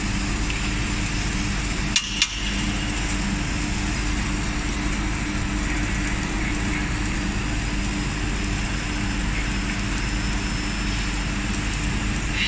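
Pole seam-welding machine running with a steady hum, and two sharp metallic knocks about two seconds in.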